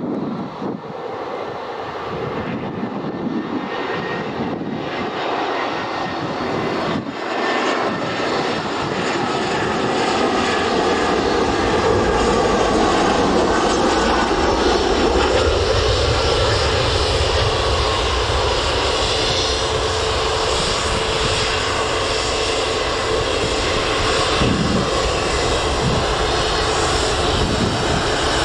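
Jet engines of an Airbus A320 airliner landing: the engine noise grows louder over the first ten seconds or so as the aircraft comes in and flares, then holds steady, with a faint whine that falls slightly in pitch.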